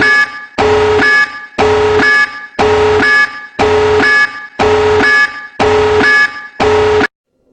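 Electronic alarm sound effect: a harsh buzzing two-part tone that repeats about once a second and stops abruptly near the end.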